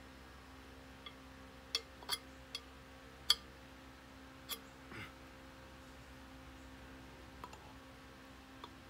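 Scattered sharp metal clicks and clinks, about nine in all, the loudest a little past three seconds in, as hands work at the hub of a car brake drum. A faint steady hum runs underneath.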